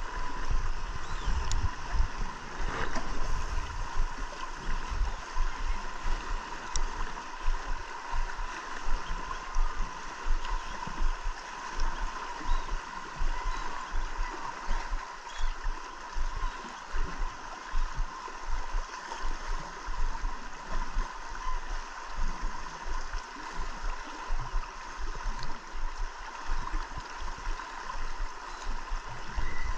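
Wind gusting on the microphone over choppy lake water lapping against a small boat, with a faint steady hum running underneath.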